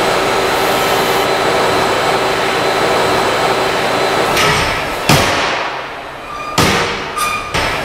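Pendulum impact test rig: a loud steady mechanical noise with a faint hum, then a sharp bang about five seconds in as the steel pendulum strikes a yellow polymer safety barrier, followed by several further knocks and clatter.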